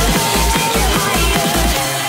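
Fast hard dance music: a heavy kick drum about three times a second under synth lines, with the kick dropping out near the end.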